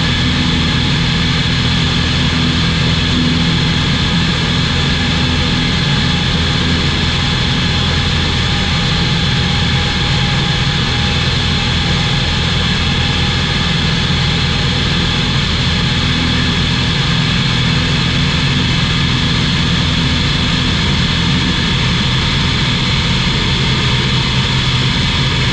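SportCruiser light aircraft's piston engine and propeller running at a steady, unchanging drone in flight, heard from on board.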